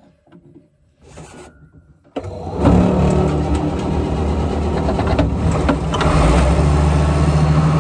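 Old International tractor engine started: a few faint clicks, then about two seconds in the engine catches and runs loudly and steadily.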